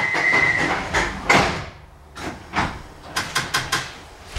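Sliding doors of a 1972 Mk2 Stock tube train closing. A steady high tone cuts off just under a second in, a heavy thud of the doors shutting comes soon after, and a string of sharp clicks and knocks follows.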